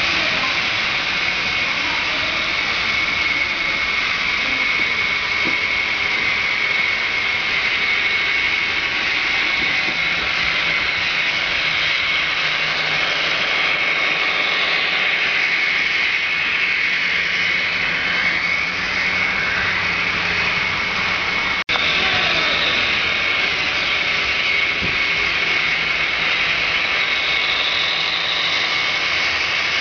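Model trains running on a layout: a steady whir of motors and wheels on the rails, with a steady high-pitched whine throughout. The sound breaks off for a moment about two-thirds of the way in.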